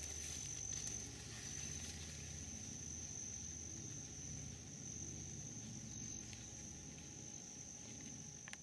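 A cricket trilling steadily, one high, thin tone that breaks off briefly about a second in, over a faint low rumble.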